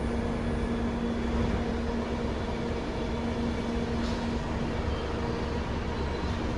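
London Underground 1972 Stock train running on the Bakerloo line: a steady rumble of wheels on rail with a steady motor hum, and a faint tick about four seconds in.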